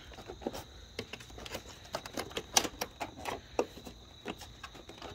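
Irregular light clicks and taps of an engine-bay cover being worked off by hand.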